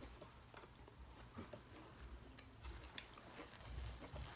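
Faint chewing and small wet mouth clicks of someone eating food from a seafood boil.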